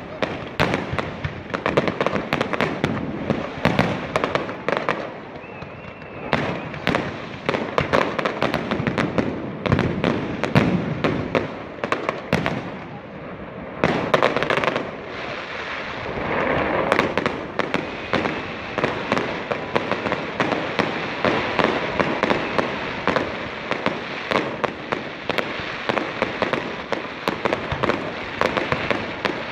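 Aerial fireworks going off in quick succession: many sharp bangs and crackling bursts, with a short lull partway through before the barrage picks up again.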